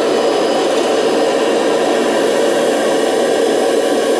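1998 Kirby Generation 5 upright vacuum running steadily at full speed, a loud even motor-and-fan rush with a faint whine on top. The owner thinks its belt is slipping a little.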